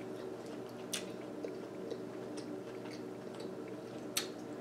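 A person chewing lobster, with wet mouth sounds, and two sharp clicks, about a second in and near the end.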